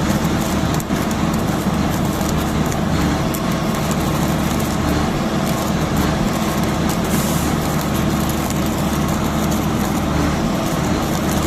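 A steady, loud engine-driven machine running, with a constant crackle of sharp ticks over it.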